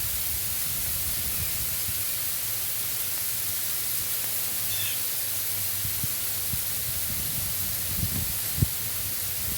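Steady hiss of heavy sleet falling, with one sharp click near the end.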